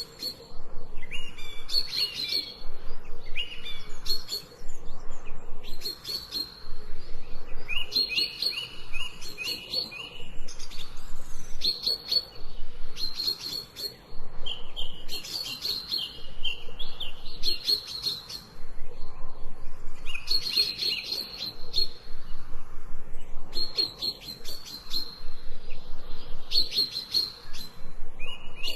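Small birds chirping in short, quick phrases that repeat every couple of seconds, over a faint steady hiss.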